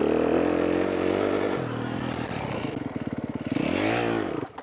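Motocross dirt bike engine running in second gear, its note steady at first and then pulsing low, with a quick rise and fall in pitch near the end before it cuts off abruptly.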